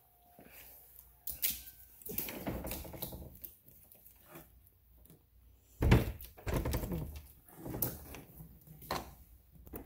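Irregular knocks, thuds and scrapes in a small room, the loudest thud about six seconds in.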